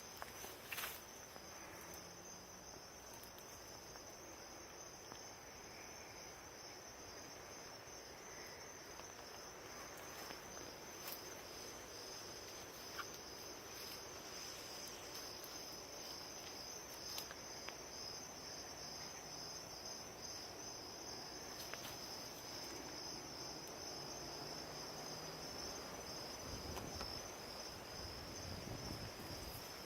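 Insects chirring steadily, a continuous high-pitched trill, with a few faint clicks now and then.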